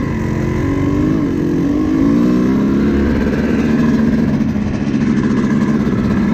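Kawasaki KX250 two-stroke dirt bike engine running under way. Its pitch rises and falls a couple of times in the first three seconds, then holds steady.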